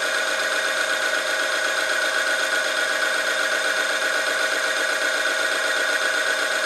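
Oil-film testing machine running under load: its electric motor turns the test ring against the weighted sample in 10W-40 motorcycle oil, a steady, even grinding whine.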